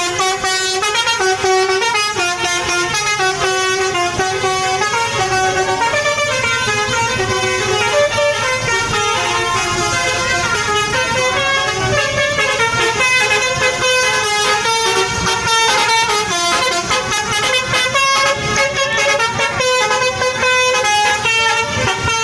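Indonesian 'telolet' bus horn, a set of musical multi-tone air horns, playing a tune of quickly stepping notes without a break.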